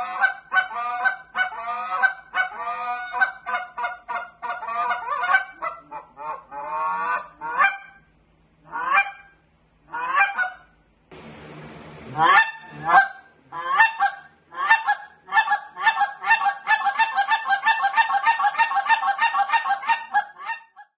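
GK Calls 'Solution' short-reed Canada goose call blown by hand: a fast string of clucks and honks that slows to single, spaced honks with a brief breathy rasp midway, then breaks into a rapid run of feeding chatter near the end.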